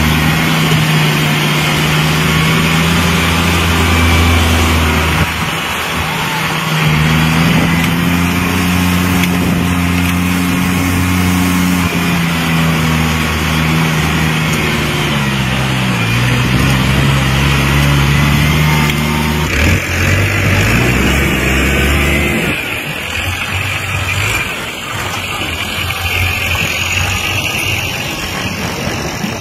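Farm tractor engine running steadily. Its pitch dips and then recovers about halfway through. The clear engine note drops away about two-thirds of the way in, leaving rougher, quieter noise.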